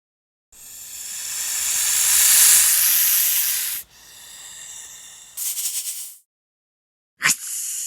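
Snake hissing in separate bursts: a long hiss that swells and fades over about three seconds, a quieter hiss after it, then a short pulsing hiss, and after a pause a sudden sharp hiss near the end.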